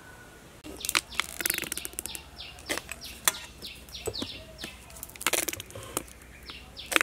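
Small birds chirping in a rapid series of short falling notes, mixed with sharp clicks and knocks that start suddenly about half a second in.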